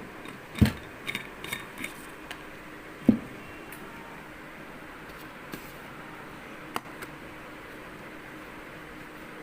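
Kitchen utensils and containers being handled: a spoon and tins knocking and clinking as sugar is spooned in. There is a quick run of knocks in the first three seconds, two of them heavier thuds, then one more click near the end, over a steady low hum.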